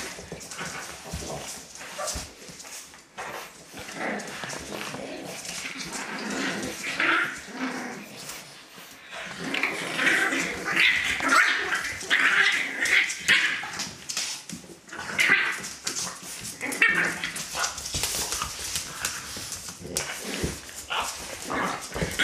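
French Bulldog puppies and their mother play-fighting, with repeated short high yapping barks that come thickest about halfway through.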